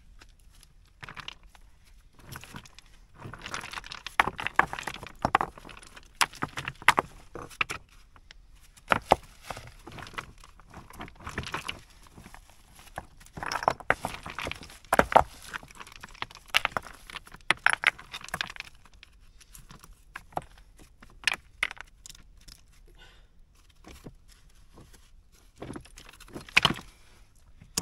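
Loose stones and rubble clinking and clattering as they are pulled aside by hand, in irregular clusters of sharp clicks and knocks with short pauses between.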